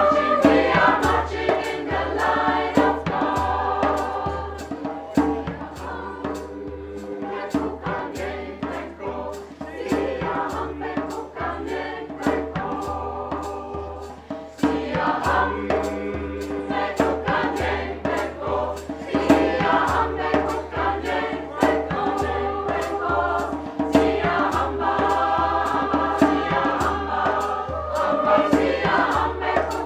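Mixed choir of women's and men's voices singing in parts, over a steady beat of sharp taps about twice a second.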